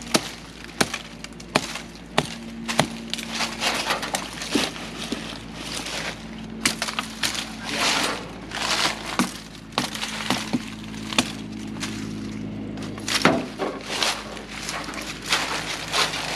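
Machetes hacking through tree limbs and brush: sharp, irregular chops and cracks of snapping wood, with rustling of branches and leaves between them.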